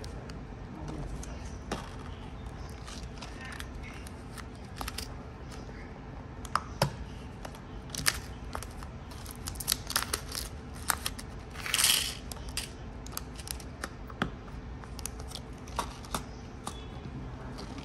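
Small clear plastic storage boxes and packets of metal nail charms being handled on a table: scattered sharp clicks and taps of plastic lids and little metal pieces, with a short louder rush of noise about twelve seconds in.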